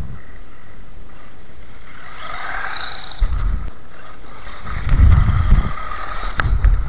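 The stock brushed electric motor and drivetrain of a WLtoys 12428 RC truck whine, rising and falling from about two seconds in as the truck drives on icy, snowy pavement. Low rumbling bursts come as it passes close, the loudest about five seconds in, and there is a sharp click near the end.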